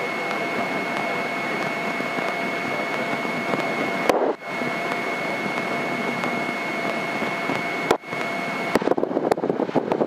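Steady cabin noise of a Grumman single-engine propeller plane's engine and propeller at taxi power, with a steady high whine running through it. The sound cuts out briefly twice, about four and eight seconds in.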